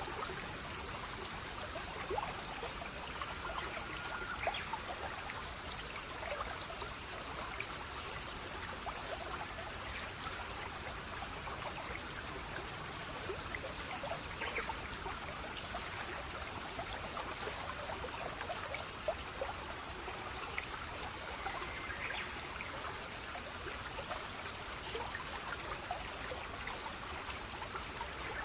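Steady running water, a stream trickling and splashing over stones, with many small drop-like splashes scattered through an even wash.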